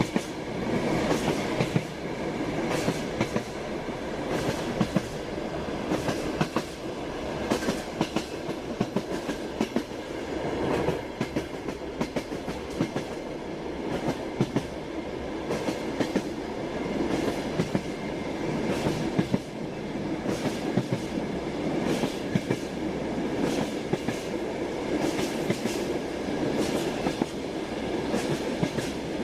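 Train wheels clacking over rail joints: a steady running rumble with repeated sharp clacks every second or two.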